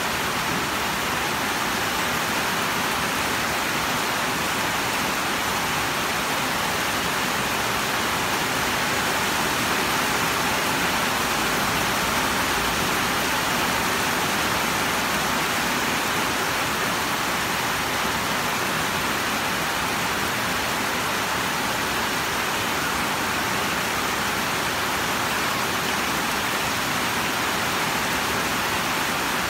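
Steady rain falling, an even hiss with no separate drops or other sounds standing out.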